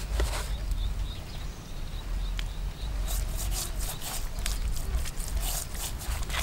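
Hands rubbing and pressing over the scaly skin of a split, cleaned fish. A run of short scraping strokes starts about three seconds in, over a steady low rumble.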